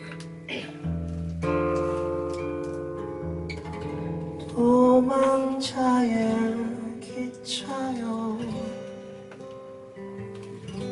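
Acoustic guitar playing a slow accompaniment, with a man's singing voice coming in about four and a half seconds in and dropping out near eight and a half seconds; the singing is the loudest part.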